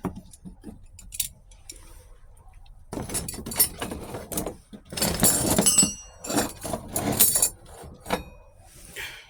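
Steel clutch plates and friction discs from a 4L60E transmission's clutch packs clinking and clattering as they are handled, in several bursts with sharp clicks and a brief metallic ring. The plates are heat-damaged, some welded together.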